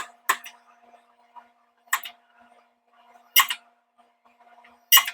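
Sharp metal clanks, about five, spaced irregularly, as the steel billet and tongs knock against the grooved ladder-pattern forging dies between presses. A faint steady hum runs underneath.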